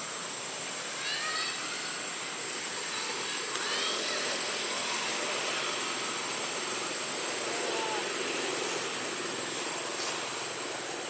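Steady high-pitched drone of insects in the trees, with a few faint, short bird chirps about a second in and again near four seconds.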